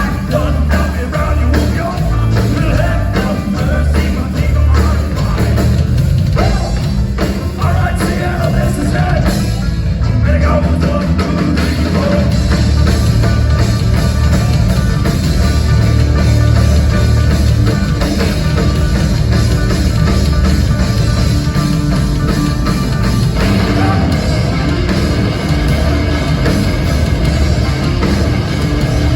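Live rock band playing loud, heavy thrash-grass music: a fast, dense full-band passage with a strong bass and drum low end, the texture changing about three quarters of the way through.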